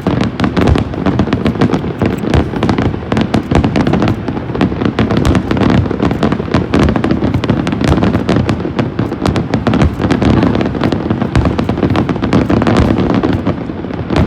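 A fireworks display in a dense, continuous barrage: many sharp bangs and crackles a second, with no letup.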